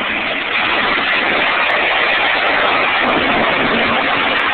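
Two Top Fuel dragsters' supercharged nitromethane V8 engines at full throttle during a run, a loud, steady wall of noise that gets a little louder about half a second in.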